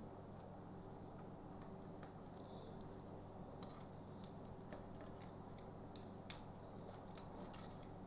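Scattered small clicks and taps of hands handling the opened laptop's plastic and metal parts, with one sharper click a little after six seconds in.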